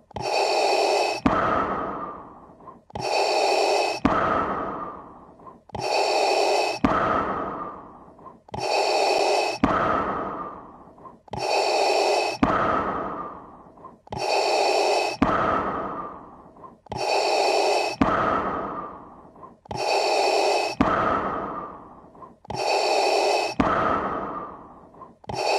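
Darth Vader-style respirator breathing sound effect, looped: a hissing breath with a tonal edge that starts sharply and fades, repeating evenly about every three seconds.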